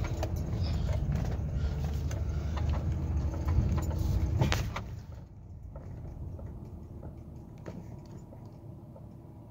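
Cabin sound of a Lincoln Town Car rolling slowly, with engine and road noise and a few knocks and clicks. About five seconds in it drops to a much quieter steady hum as the car comes to a stop with the engine idling.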